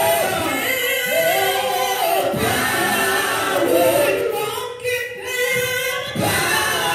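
Gospel group of several voices singing together, with a short break in the singing about five seconds in.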